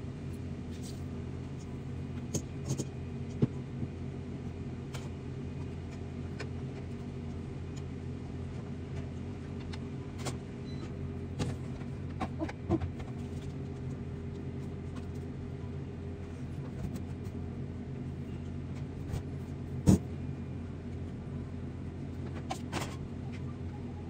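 A steady low motor hum, with scattered light clicks and knocks of kitchen utensils; the sharpest knock comes about twenty seconds in.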